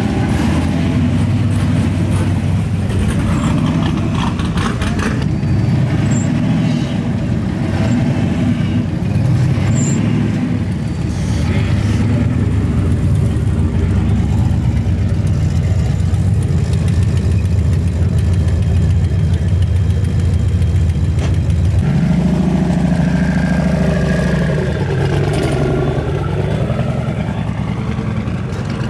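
Performance car engines running loud and steady at close range. About twenty seconds in the engine note shifts, and near the end an engine sound swoops down and back up in pitch.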